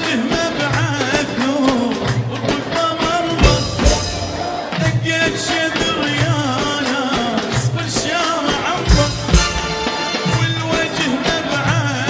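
Live Iraqi chobi dance music: a steady, repeating drum beat with sharp hand-drum strokes under a melody that bends and wavers in pitch.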